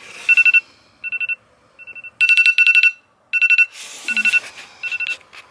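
Smartphone alarm going off: fast electronic beeps on two steady pitches, sounding in short clusters with brief pauses between them.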